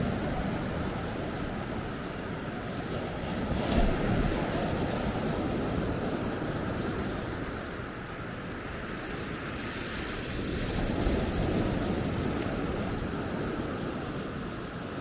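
Sea surf on a beach: waves breaking and washing up the shore in a steady rush that swells twice, about four seconds in and again near eleven seconds, with some wind on the microphone.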